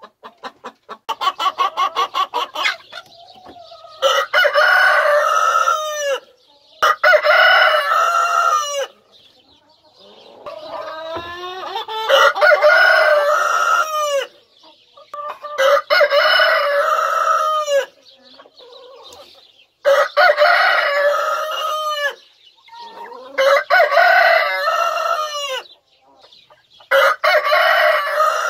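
Rooster crowing over and over, seven long crows in all, about one every four seconds. Hens cluck between the crows, with a quick run of clucks in the first few seconds.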